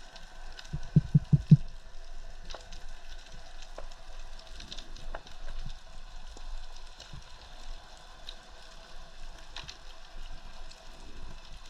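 Underwater ambience: a steady hiss scattered with faint crackling clicks. About a second in there are four quick low thumps, the loudest sound here.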